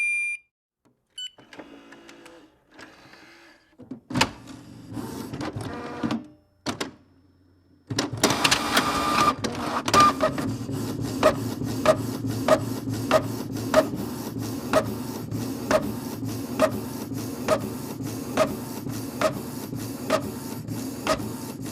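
Inkjet printer printing a document. A short tone comes at the start, followed by stop-start whirring as the printer prepares and takes in the paper. From about eight seconds in it runs steadily, with a regular click about twice a second.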